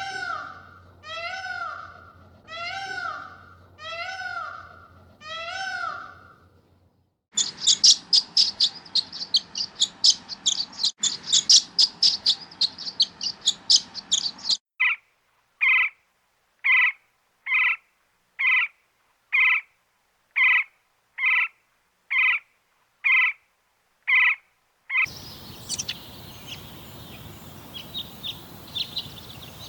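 A run of separate animal recordings, cut together. First come five rising-and-falling calls about a second and a half apart. Then there is a burst of rapid, high bird chirping, then a short call repeated about once a second. Last comes scattered birdsong over a steady outdoor hiss.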